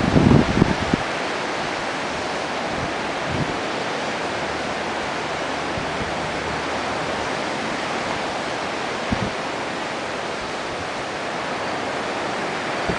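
Steady rush of wind and surf, with low gusts buffeting the microphone in the first second and briefly twice more.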